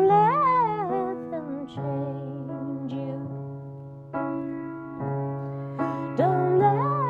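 Song intro: sustained keyboard chords changing every second or two, with a woman's wordless vocal line gliding up and down over them near the start and again about six seconds in.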